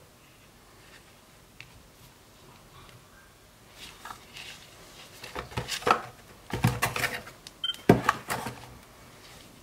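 Handling noise from a Kodak PixPro FZ43 compact digital camera: fingers tapping and clicking on its plastic body and buttons, a busy run of short clicks and knocks from about four seconds in to near the end, with a brief high tone near the end.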